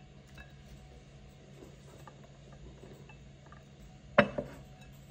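A ceramic serving bowl knocks sharply once on a wooden board about four seconds in, with a smaller knock just after, over a quiet steady low hum.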